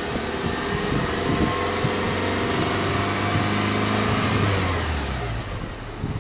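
Exhaust of a Subaru Legacy's EJ25 2.5-litre flat-four, revved in neutral and held at raised revs for about four seconds, then dropping back toward idle about five seconds in.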